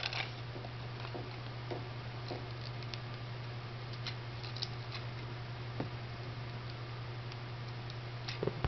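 Faint, scattered clicks and taps of small plastic toy parts being handled as a sword accessory is fitted onto an action figure's arm, over a steady low hum.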